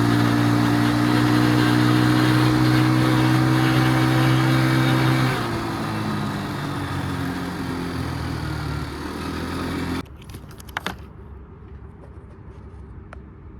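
Small ATV engine of a Can-Am DS90 running at a steady fast idle, then dropping to a lower idle about five seconds in. The engine sound cuts off about ten seconds in, leaving a few faint clicks.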